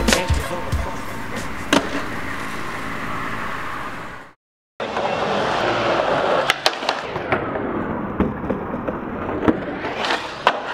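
Skateboard wheels rolling on rough pavement, with sharp wooden clacks of the board popping and landing. The sound cuts out for a moment about four seconds in. Near the end the board scrapes onto a concrete ledge.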